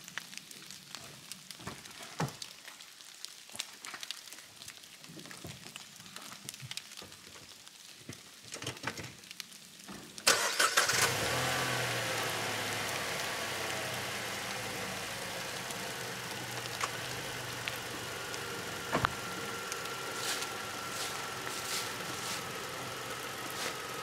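Footsteps and light rustles on dry leaf litter, then about ten seconds in an Opel Karl's 1.0-litre three-cylinder petrol engine starts in the cold and settles into a steady idle that slowly gets quieter. A thin steady whine joins the idle later on.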